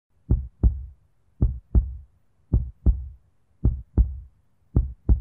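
Heartbeat sound effect: low double thumps, lub-dub, about once a second, five times over.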